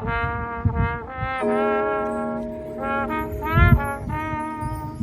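High school marching band playing: brass (trumpets and trombones) holding sustained chords that change every second or so, with a swelling brass note near the middle and drum hits underneath.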